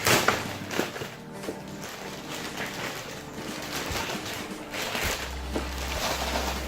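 Shipping packaging being handled and torn open: rustling, crackling and small knocks, loudest at the very start, over background music whose steady bass notes come in about five seconds in.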